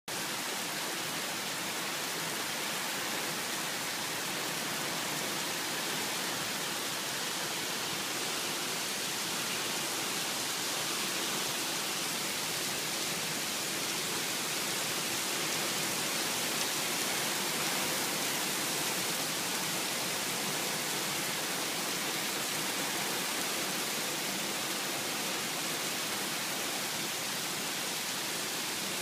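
Rainstorm: rain falling steadily, an even hiss with no thunder or separate drops standing out.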